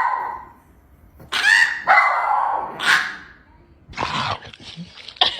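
Dog giving a series of short, pitched barks and yowls, several calls with pauses between them.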